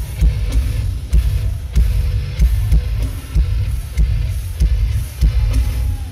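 Live metalcore band playing through a concert PA, heavy on the low end: kick drum and bass pounding in an uneven, stop-start rhythm, with little audible above them.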